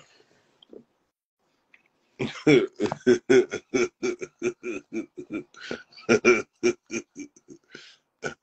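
A man laughing hard in a long run of short, rapid, croaky bursts, about four a second, starting about two seconds in.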